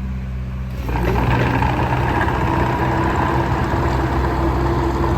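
Diesel engine of a JCB 55Z-1 midi excavator running steadily. About a second in it gets louder and busier, with a steady whine over the engine note that holds from then on.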